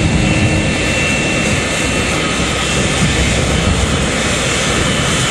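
Steady jet roar of Concorde's four Rolls-Royce Olympus turbojets in flight, with a faint high whine over it.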